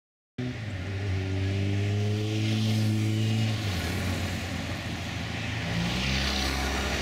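Motorcycle engines on the road: one engine note climbs slowly and fades about three and a half seconds in, then a second engine comes up, rising near the end.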